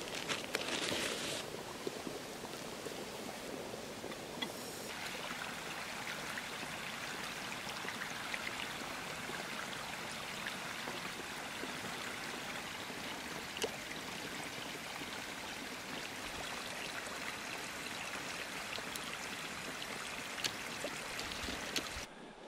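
Small woodland brook flowing and trickling steadily over rocks and ice. In the first second or so, a plastic bag crinkles.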